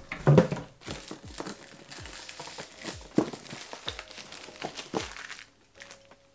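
Clear plastic wrap crinkling as it is handled and pulled off a cardboard box, in quick irregular crackles that stop about five and a half seconds in.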